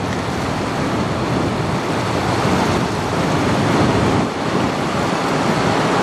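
Steady rushing noise of water and wind, with wind buffeting the microphone.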